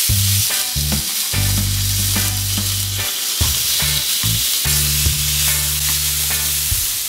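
Raw marinated chicken thighs sizzling loudly on a preheated ridged stovetop grill pan, the frying hiss starting suddenly as the first piece goes down skin side down. Metal tongs click against the pan now and then as more pieces are laid on.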